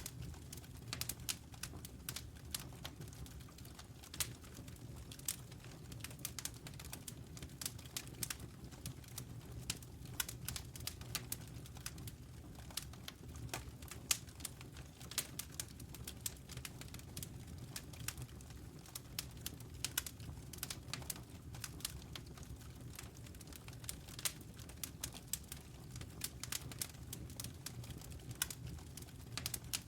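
Wood fire crackling: a dense run of irregular sharp pops and snaps over a low, steady rumble of the flames.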